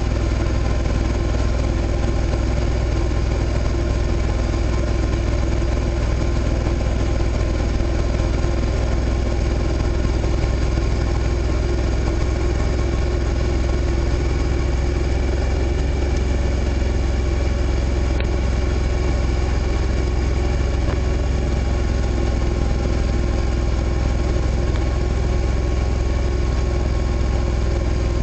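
Suzuki SV650's V-twin engine running at a steady, unchanging note as the motorcycle coasts downhill in sixth gear, the engine barely loaded so as to give little engine braking.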